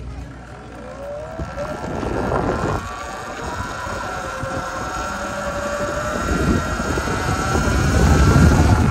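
Sur-Ron electric dirt bike pulling away from a stop, its motor whine rising in pitch as it gathers speed. Wind rumble on the microphone grows louder toward the end.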